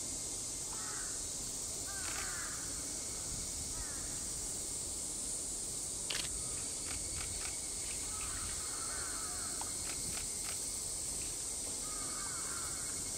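Outdoor summer ambience: a steady high drone of insects, with crows cawing a few times in the background. A few short sharp clicks come about six seconds in and again near ten seconds.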